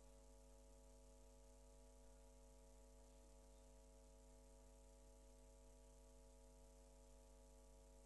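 Near silence, with only a steady electrical hum and its overtones.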